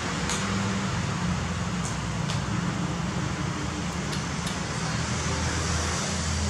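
Steady low hum and hiss of mechanical background noise, with a few faint short clicks.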